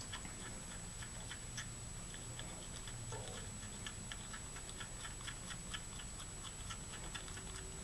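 Wooden popsicle stick stirring paint in a small glass jar, with faint, irregular clicks as the stick knocks against the glass.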